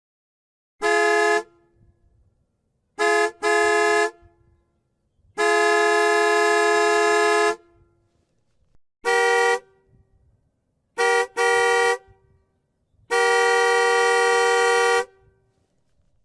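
Car horn honking in a pattern: a short beep, a quick double beep, a long blast of about two seconds, another short beep, another double beep, then a second long blast. Two notes sound together in each honk, as from a dual-tone horn.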